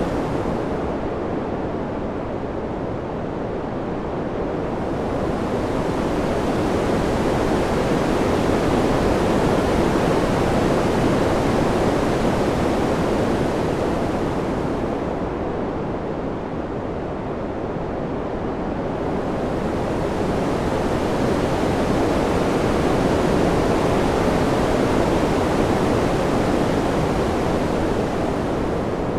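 Steady rushing wind that slowly swells and eases, turning brighter and then duller about every fourteen seconds.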